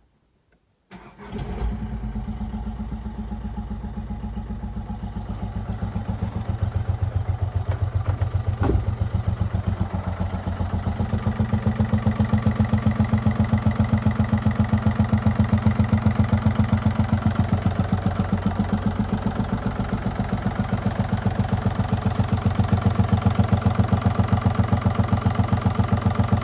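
Skoda Fabia 1.4 TDI three-cylinder diesel engine cranks and catches about a second in, then idles with an even, rhythmic clatter. It is a used contract engine on its first start, and the owner says it knocks.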